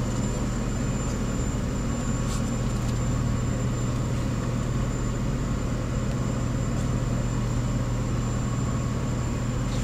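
Steady mechanical hum with a thin high-pitched whine, from a machine running in the background, like a fan or ventilation unit.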